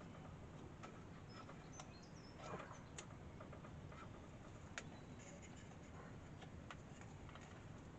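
Near silence: quiet room tone with a few faint sharp clicks and small, brief high chirps.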